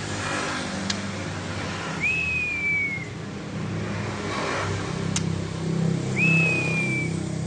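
Murai songbird giving two long whistled calls about four seconds apart, each lasting about a second, rising quickly and then sliding slowly down in pitch: the drawn-out 'ngelowo' call. A steady low motor-like hum runs underneath.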